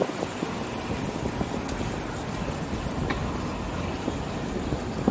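Steady rumble of wind and road noise from a bicycle riding along a city street, with traffic mixed in.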